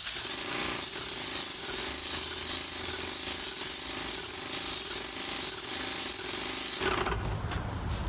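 Airless paint sprayer gun spraying paint onto a bus's metal side: a loud, steady hiss with a steady tone underneath. The hiss starts suddenly and cuts off about seven seconds in.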